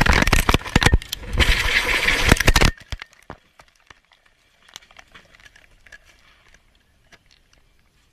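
Helicopter crashing: a loud jumble of crunching and clattering impacts, which cuts off abruptly a little under three seconds in, leaving only faint scattered clicks.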